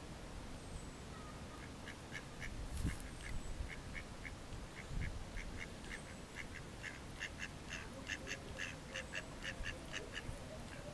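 Mallard ducks quacking in a run of short, quick calls, a few each second, growing busier and louder toward the end. A few low thumps come in between.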